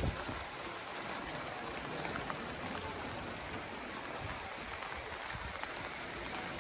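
Steady hiss of light rain falling on wet pavement and snow, with a few scattered drips.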